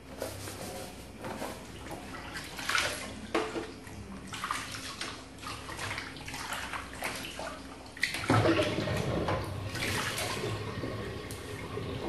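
Hands splashing and swishing banana leaves in soapy water in a stainless steel sink. About eight seconds in, a louder, steadier rush of water starts.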